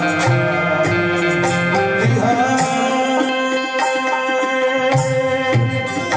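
Qawwali music: harmonium chords and melody with tabla strokes under a man's singing voice, which takes up a long held, wavering note about two seconds in.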